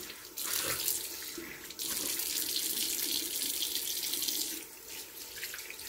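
Bathroom sink tap running, with water splashing as cleansing gel is rinsed off the face; the splashing grows louder about two seconds in.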